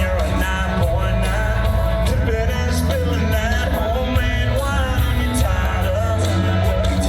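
Live country music over a concert sound system: a full band with heavy bass and a sung vocal melody.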